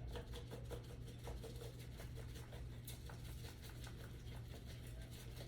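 Grated Parmesan cheese being poured or shaken into a bowl: a faint, quick, light pattering of many small ticks over a steady low hum.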